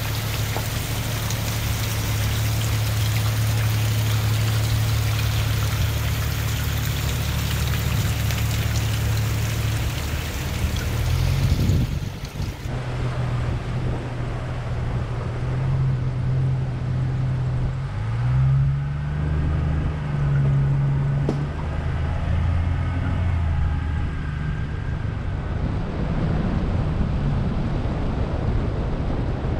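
Jeep Cherokee XJ driving, its engine a steady low hum under a dense hiss of road noise. About halfway through the sound changes and the engine's pitch rises and falls with the revs.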